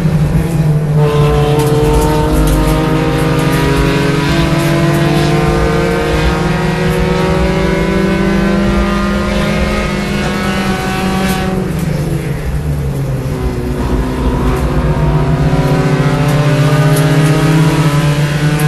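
B-Spec race car's small four-cylinder engine running hard on track, heard from inside the cabin. The engine note eases off about twelve seconds in, then pulls up again.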